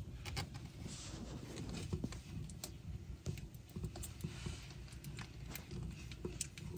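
Newborn kittens jostling and suckling at their mother: irregular soft clicks and rustles over a low steady rumble.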